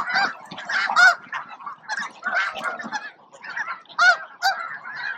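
A large flock of snow geese honking, many short high-pitched calls overlapping in a constant clamour, with a few louder calls standing out.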